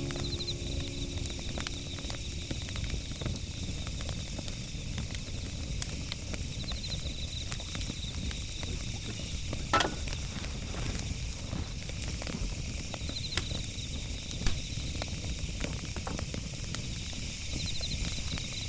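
Wood fire crackling with scattered small ticks and a couple of louder pops over a low outdoor rumble; a short high trill sounds several times.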